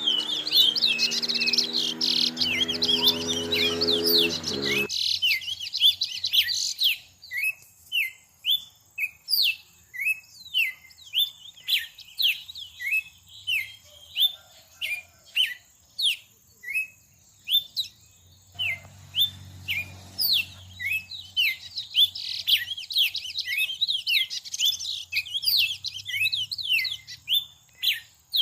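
A small bird chirping repeatedly: short, sharp, downward-sliding chirps at about two a second, with denser overlapping chatter in the first few seconds. A low steady hum sounds under the chirps and stops about five seconds in.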